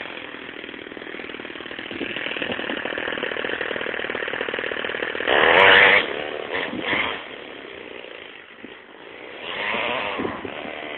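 The single-cylinder OS FS-26 four-stroke glow engine of a radio-controlled car running as the car drives, its revs rising and falling. It revs hardest about five seconds in, with another rise near the end.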